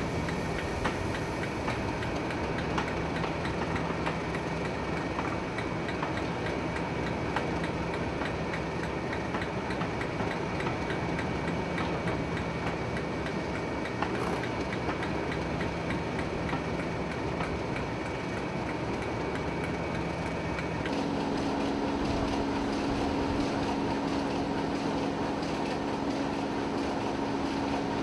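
Class 37 diesel-electric locomotive's English Electric V12 engine idling, a steady drone with a high steady whistle above it, while railway coaches roll past on the adjacent line. About two-thirds of the way in, the sound switches abruptly to a louder, lower steady idle of other mainline diesel locomotives standing side by side.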